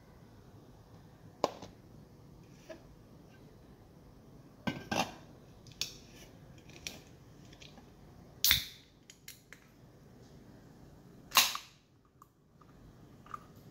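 Scattered light clicks and knocks of containers being handled on a countertop, with two loud sharp cracks: one about eight and a half seconds in, and the loudest about eleven and a half seconds in, where a can of beer is cracked open by its ring-pull.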